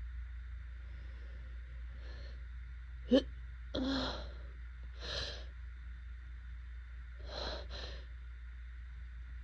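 A person in an allergy attack sneezing, with wheezy, gasping breaths and sniffs in between. The loudest is a sharp burst about three seconds in, and a few more short bursts follow, two of them close together near the end.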